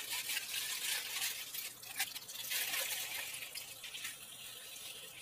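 Aluminium foil and butter paper crinkling and rustling as they are pulled by hand off a frozen kulfa mould, growing quieter toward the end.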